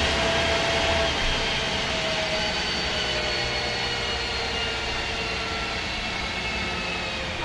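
MAN SD202 double-decker bus under way, its MAN D2566 MUH diesel and Voith Diwa 851 automatic gearbox heard from inside the cabin; the drivetrain's whines slowly fall in pitch and the sound eases off as the bus slows.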